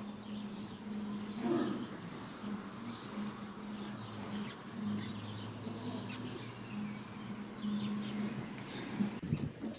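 Birds chirping faintly and sporadically over a steady low hum.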